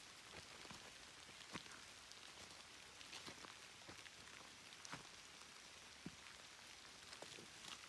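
Faint steady rain, with scattered single drops landing as sharp little clicks.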